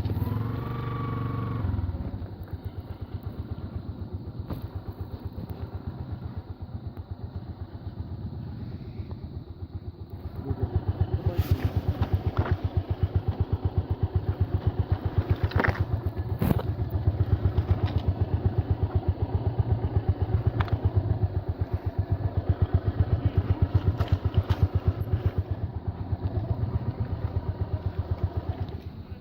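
Yamaha R15 motorcycle's single-cylinder engine running under way, its firing pulses steady throughout; the engine note rises briefly at the start and gets louder about ten seconds in, with a few sharp clicks a little later.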